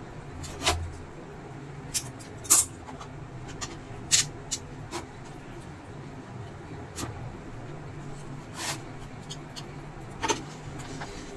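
Screwdriver tip prying and scraping along the edge of an induction cooker's glass top where it meets the plastic body frame: a string of irregular sharp clicks and short scrapes over a low steady hum.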